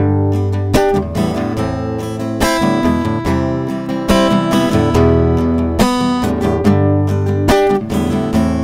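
Acoustic guitar strummed, playing a run of sustained chords with repeated strokes and no singing.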